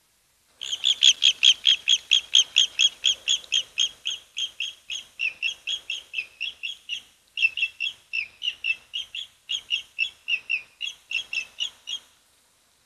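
A bird calling a rapid run of short, sharp chirps, about four a second, which starts and stops abruptly, with one brief break about halfway through.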